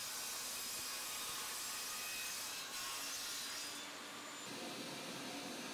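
Table saw blade cutting a bevel through melamine-faced chipboard as the panel is fed with push blocks, a steady hissing cut. A little under four seconds in the cut finishes: the hiss drops away, leaving a lower hum of the blade running free.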